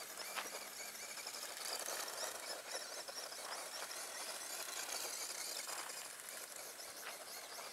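Tamiya Grasshopper radio-controlled buggy driving on gravel: its small brushed electric motor whining and its tyres hissing over grit, with a few sharp clicks.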